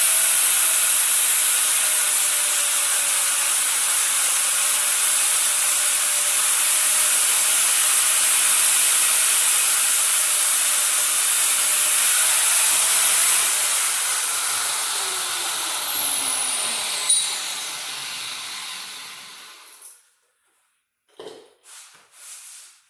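Handheld power tool running steadily and loudly, then released: its pitch falls as it spins down, and it stops about twenty seconds in.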